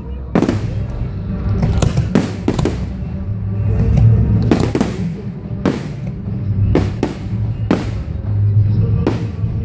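Fireworks display: aerial shells bursting in a quick irregular series of about a dozen sharp bangs, over music with a deep low end.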